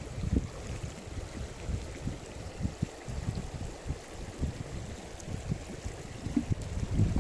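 Low, gusty wind noise buffeting the microphone, rising and falling irregularly.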